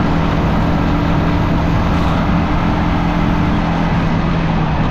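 Motorcycle under way at a steady cruise: an even engine hum over heavy wind and road noise on the rider's microphone.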